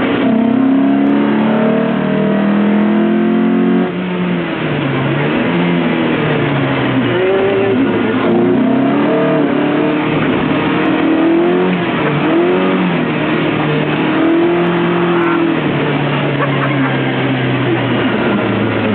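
Lotus Elise engine under hard driving on a circuit. It holds high revs, lifts off sharply about four seconds in, then repeatedly revs up and drops back in pitch through gear changes and corners.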